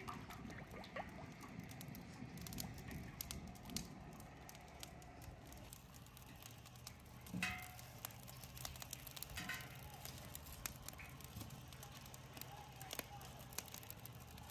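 Wood fire burning in a steel fire box, crackling with scattered irregular pops over a low steady rumble. One brief louder sound about halfway through.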